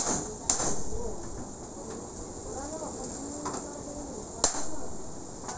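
A steel claw bar prying old corrugated iron roofing sheets loose, with sharp metal knocks: two in the first half second and a louder one about four and a half seconds in.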